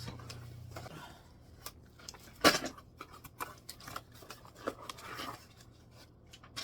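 Cardboard box and packaging being handled as a string trimmer is worked out of it: scattered scrapes, rustles and knocks, with one sharp knock about two and a half seconds in.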